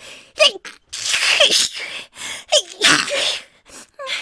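A woman sneezing again and again, several sneezes in quick succession, with short high-pitched voiced catches of breath between them.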